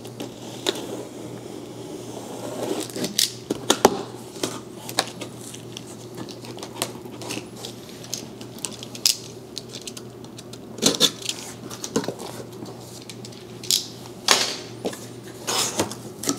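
A box cutter slitting packing tape along the top of a cardboard box: scattered clicks, taps and short scrapes of the blade on tape and cardboard. Louder scrapes and rustles near the end as the cardboard flaps are worked open.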